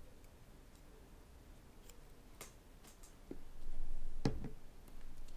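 Light handling of small tools on a tabletop: a few faint clicks, as of tweezer tips, then a louder rustle with two dull knocks about four seconds in as an arm reaches across the table.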